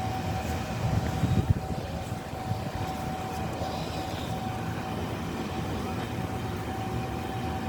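Steady running hum of a train standing at the platform: a low rumble under a constant thin whine.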